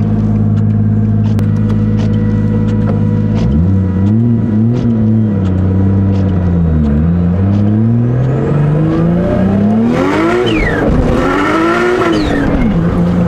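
The 350Z's 1JZ inline-six engine idling, then revving up and down several times, its pitch rising and falling, before settling back to a steady idle near the end.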